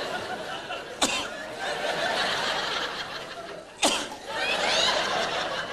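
A theatre audience laughing. Two sharp, loud cracks cut through it, about a second in and again near four seconds.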